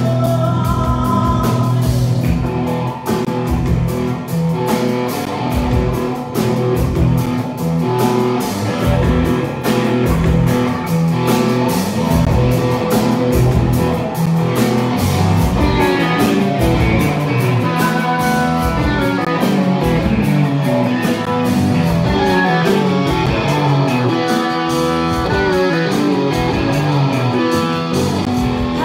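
Live rock band playing: electric guitars over a drum kit with a steady beat, in a passage led by guitar lines.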